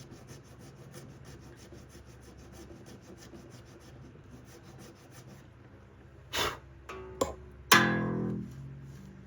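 A nut-slot file rasping in quick, short, even strokes across an antler guitar nut, cutting a string slot deeper. Near the end come a couple of sharp clicks, then a guitar string plucked once, ringing and fading within a second, as the slot depth is checked.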